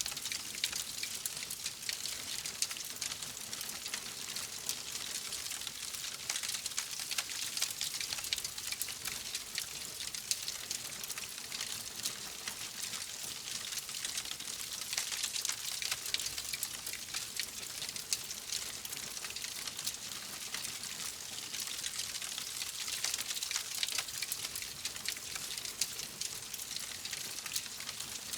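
Wood fire crackling steadily: a dense hiss thick with small snaps and pops.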